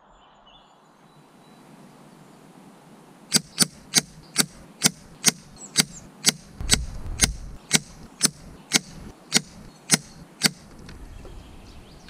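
A rapid string of about sixteen sharp air rifle shots, roughly two a second, from an FX Impact M3 PCP air rifle firing .177 JSB Knockout slugs at a target, sped up so they come almost like a machine gun. The shots start about three seconds in and stop about ten seconds in.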